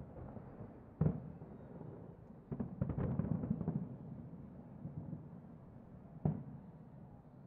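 Distant fireworks shells bursting: one boom about a second in, a rapid cluster of bangs and crackle around three seconds, and another boom near the end, over a low rumble.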